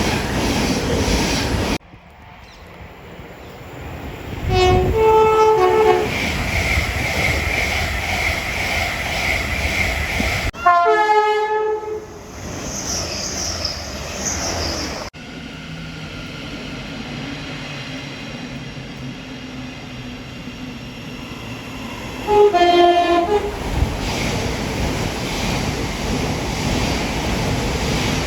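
Passing trains sounding their two-tone horns three times, each a short blast stepping between two pitches, over the steady rumble of the trains running by.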